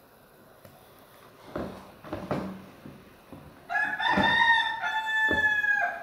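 Rooster crowing: one long crow of about two seconds, starting a little past the middle, after a few short, sharp sounds about a second and a half in.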